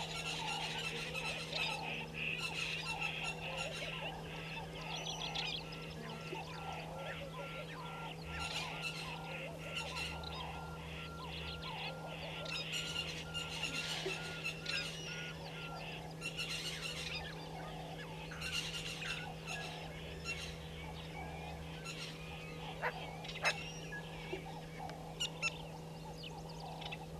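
Egyptian geese and their goslings calling: repeated clusters of short, high-pitched peeps and calls, over a steady low hum.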